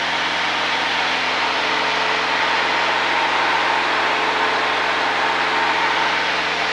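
Single-engine Cessna's piston engine and propeller droning steadily in cruise, heard inside the cabin with a constant hiss of airflow.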